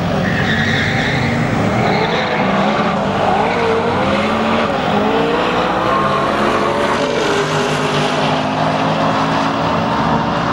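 Two road cars, an Audi R8 and an Audi estate, launching off a drag strip start line and accelerating hard side by side, their engine notes climbing in pitch and dropping back at each gear change.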